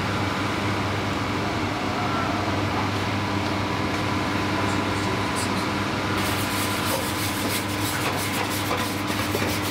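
Steady hum of commercial kitchen ventilation. From about six seconds in, a wire whisk scrapes and clicks rapidly against a stainless steel hotel pan of stock.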